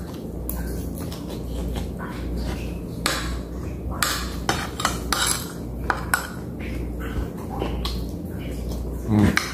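Eating with a metal spoon from a ceramic plate: scattered clinks and scrapes of the spoon on the plate, with chewing and mouth sounds. A low steady hum runs underneath.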